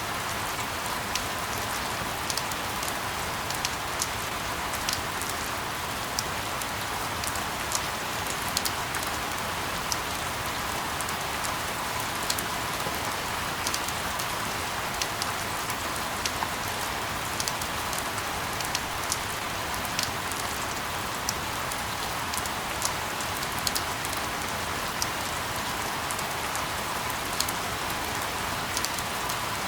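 Steady white noise like rainfall: an even hiss with many small sharp ticks like drops scattered through it, at a constant level.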